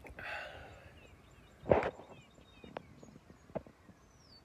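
A long breathy exhale, as of vape vapour blown out, fading over about a second. Then one sharp knock near the middle, a few lighter clicks, and faint bird chirps in the background.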